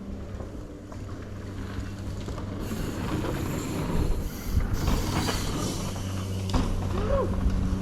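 Mountain bike running over the dirt trail: tyre noise with knocks builds from about three seconds in and peaks midway, then short squeals near the end. A steady low hum runs underneath.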